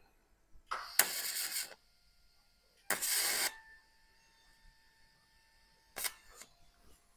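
TIG welding torch striking and running an arc on an exhaust tube: three short bursts of hissing crackle, about a second in, about three seconds in and near the end, with a faint steady high whine from the welder in between.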